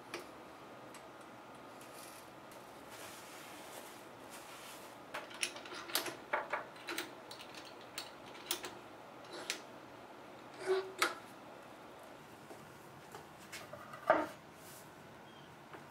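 Scattered light clicks and clacks of metal bar clamps being adjusted on a glued-up wooden cutting board, coming most often between about five and eleven seconds in, then a louder wooden knock near the end.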